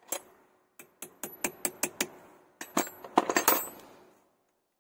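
A steel wrench clicking against the brass clamp nut of a tractor battery terminal as the nut is worked: a single click at the start, then a quick run of sharp metallic clicks about five a second, and a louder, denser cluster about three seconds in.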